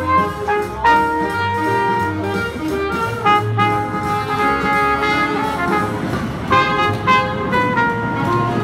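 Live jazz from a small street band: a saxophone and a brass horn playing a swing tune together.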